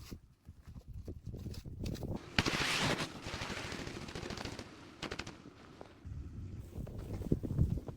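Footsteps crunching through snow: a quick, uneven run of sharp crunches, with a louder rushing noise about two and a half seconds in.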